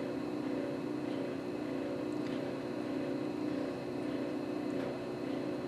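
Air compressor running steadily: a continuous, even mechanical drone.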